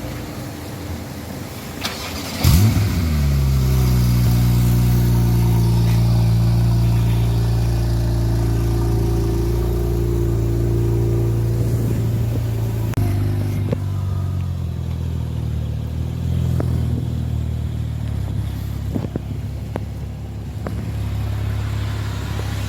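Porsche 991 Turbo's twin-turbo flat-six with an Evox aftermarket exhaust starting up: a brief crank about two seconds in, then a loud flare as it catches. It settles into a steady fast idle, which steps down to a lower, steady idle about thirteen seconds in.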